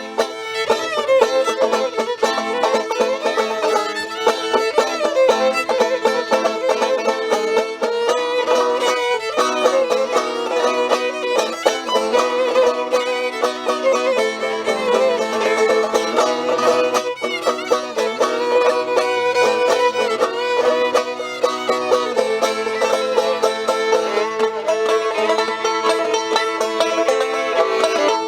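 Live acoustic string music, an instrumental passage without singing: a bowed fiddle melody over plucked strings such as banjo, playing a Romanian traditional tune.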